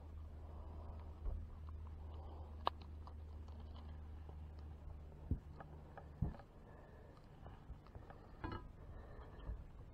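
Faint scattered clicks and knocks from a lip-grip tool and digital fish scale being handled while a bass is weighed, over a low steady hum that stops about six seconds in.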